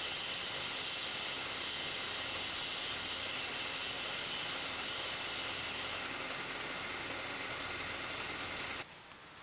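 A workshop power tool running steadily with a dense hissing whir. It cuts in suddenly, loses some of its high hiss about six seconds in, and stops abruptly near the end.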